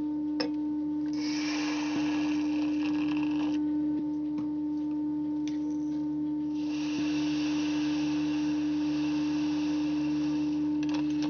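A loud, steady pure tone that holds one pitch throughout. Stretches of hiss lie over it, from about a second in to about three and a half seconds, and again from about five and a half seconds to near the end, where a few light clicks follow.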